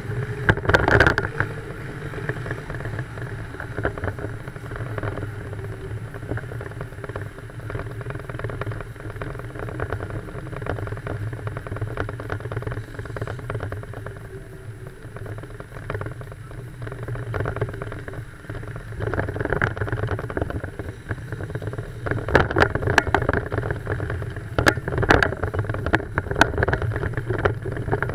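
Car driving slowly: a steady engine drone and road noise, heard from a camera on the outside of the car, with irregular knocks and buffets against the camera. It grows louder in stretches near the end.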